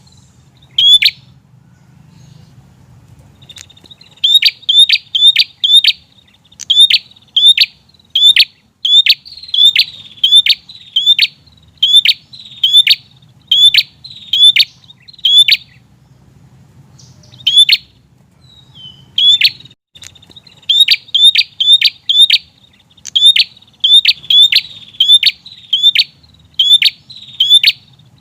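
A prinia (prenjak) calling insistently: a long series of short, sharp chip notes, about two a second. The series pauses for a few seconds near the start and briefly twice in the second half.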